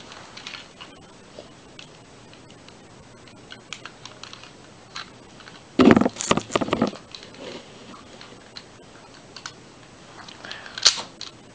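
A LEGO blowback pistol handled and its plastic brick mechanism worked by hand: scattered small plastic clicks and rattles. A louder burst of clatter comes about six seconds in, and a single sharp click just before the end.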